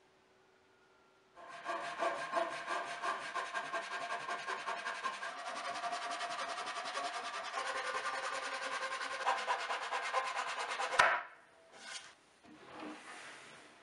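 Japanese pull saw cutting quickly through cherry branch rounds, a fast steady run of rasping strokes that ends with a sharp crack about eleven seconds in.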